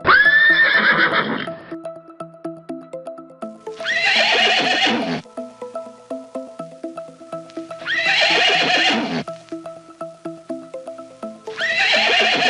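Horse neighing four times, about every four seconds, each whinny lasting a second or so; the first is the loudest. A repeating melody of background music runs underneath.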